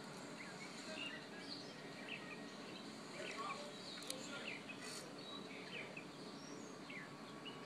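Faint outdoor ambience over a steady hiss, with many short bird chirps scattered throughout and a single sharp click about four seconds in.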